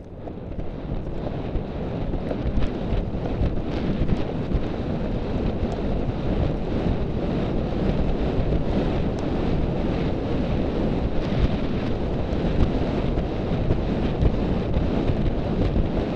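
Strong wind buffeting the microphone of a rider's head-mounted camera as the horse gallops across the course, building over the first couple of seconds and then holding steady. The horse's hoofbeats thud faintly beneath it.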